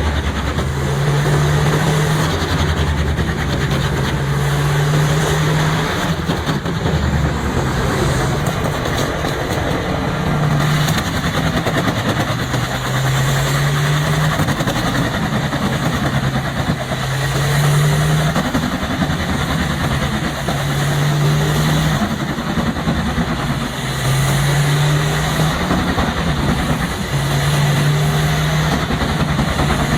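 Pezzolato PTH 1400/1000 drum wood chipper running hard, its diesel engine droning over the grinding of wood being fed through. The engine note steps up and down every couple of seconds as it takes and sheds load.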